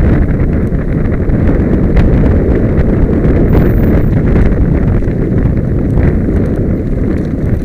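Mountain bike rattling down a loose, rocky trail: tyres crunching over gravel and stones, with a dense run of clattering knocks and wind rushing over the microphone.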